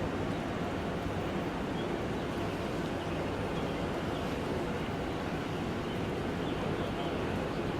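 Commuter train at the station making a steady, even rumble.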